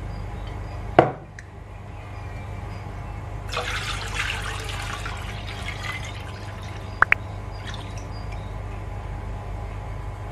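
Milk being poured from a glass bowl into a saucepan, heard as a splashing pour for a couple of seconds starting about three and a half seconds in. A sharp knock about a second in and a quick double clink near seven seconds, over a steady low hum.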